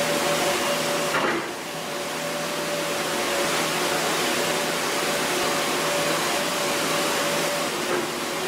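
Large excavator running steadily: a continuous noisy machine drone with a steady whine over it, dipping briefly a little over a second in.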